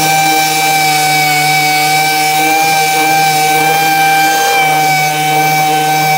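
Air-powered random orbital (DA) bodywork sander running at a steady full speed, a high whine over a hiss of air, its pad sanding old paint off a cast iron panel.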